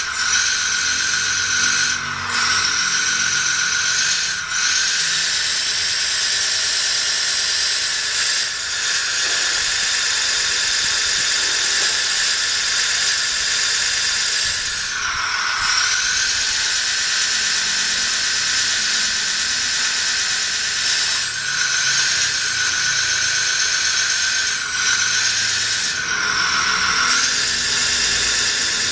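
Small electric motors and gearboxes of a 1/16-scale RC excavator running with a high-pitched whine, dropping away briefly and starting again several times as the functions are switched.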